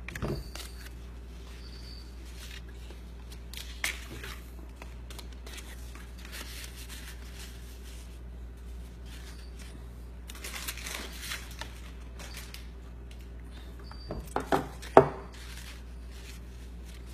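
Cardstock petals rustling and crinkling as they are handled and pressed into place, with a few short, sharp knocks near the end.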